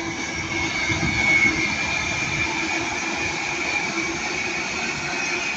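Northern Class 331 electric multiple units passing, with a steady high whine over the running noise.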